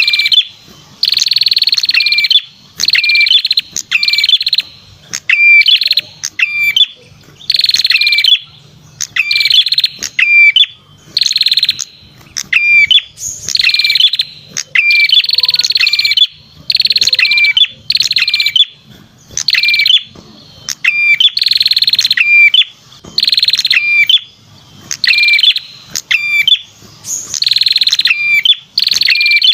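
Lure call of the perenjak kepala merah songbird: a loud, rapid buzzing trill about a second long, repeated about every one and a half seconds, with short sharp notes between the phrases.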